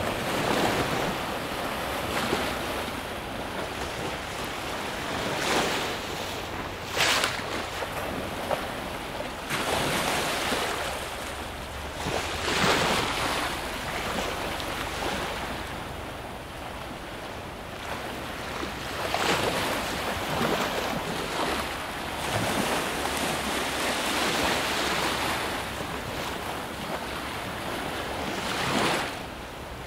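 Small sea waves washing over shallow water, swelling in irregular surges every few seconds, with wind rumbling on the microphone.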